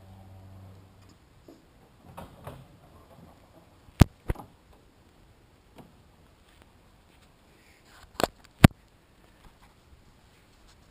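A 1967 Corvette's hood being released and raised: a few light knocks, then two sharp clicks about four seconds in and two more just after eight seconds.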